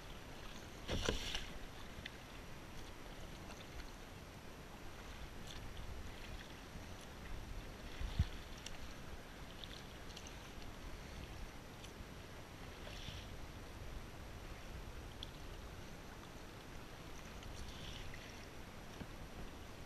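Kayak paddle strokes, the double-bladed paddle dipping and splashing in calm sea water every few seconds over a steady wash of water. Two sharp knocks stand out, about a second in and just after eight seconds.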